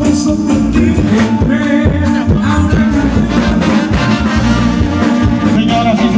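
Brass band (banda) music playing with a steady beat, trumpets and trombones to the fore.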